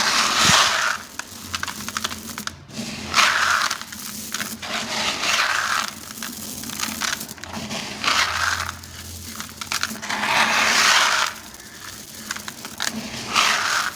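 Dry sand-cement blocks being crushed and crumbling, in about six separate crunchy, gritty bouts with fainter crackles of grit in between.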